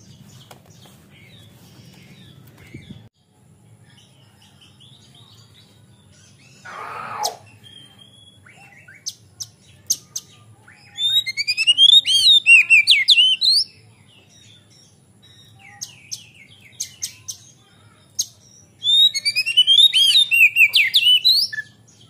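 Male oriental magpie-robin (kacer) singing. There are two loud bursts of fast, swooping whistled notes, each lasting two to three seconds and about eight seconds apart, with scattered short sharp notes in between.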